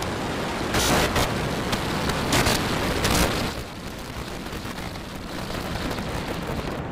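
Super Heavy booster's Raptor engines at liftoff: a dense, crackling rocket rumble. It is loudest over the first three seconds or so, then drops in level.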